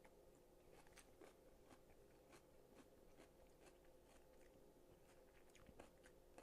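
Faint chewing of a mouthful of coleslaw: soft, irregular crunchy clicks over quiet room tone.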